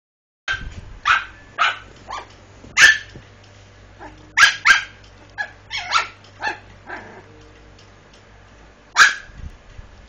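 Maltese puppies about eight weeks old barking in short, high-pitched yaps, about a dozen in clusters with a pause of a couple of seconds near the end.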